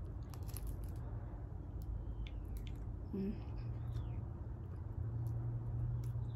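Close-up eating sounds: scattered crackles and wet clicks as cooked shrimp are peeled by hand and chewed.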